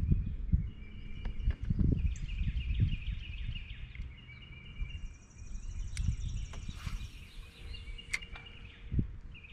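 Gusty wind rumbling on the microphone, with small birds chirping in quick repeated phrases throughout. Two sharp clicks come about six and eight seconds in.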